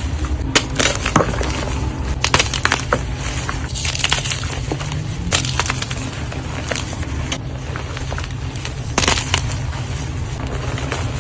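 Dyed gym chalk blocks being crushed: dry, crisp crunches and crackles, thickest in the first few seconds and again about nine seconds in, over a steady low hum.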